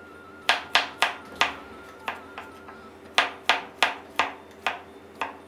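Chef's knife thinly slicing garlic cloves on a wooden cutting board: about a dozen sharp taps of the blade striking the board, in uneven runs of two to four.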